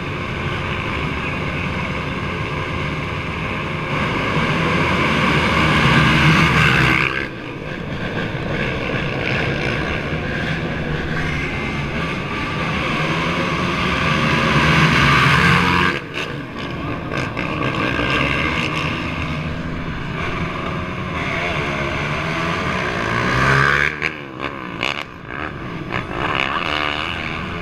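A large field of racing ATV engines running and revving together at a race start. The noise swells louder three times, and each swell cuts off suddenly.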